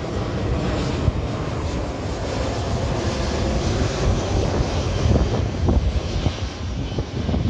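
Airbus A320 jet airliner flying over, its engines giving a loud, steady rumbling rush.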